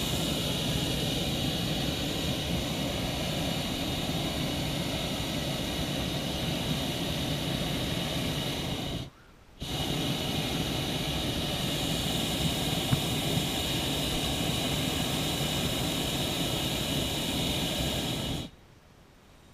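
Hot-air balloon's double propane burner firing in two long blasts of about nine seconds each, with a half-second break between them: a loud, steady rushing noise that starts and cuts off abruptly. The blasts heat the air in the envelope to make the balloon climb.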